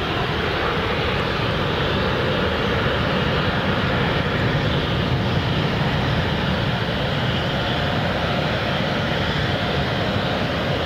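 Twin-engine jet airliner taking off at full thrust: a steady, loud jet-engine noise as it lifts off and climbs away.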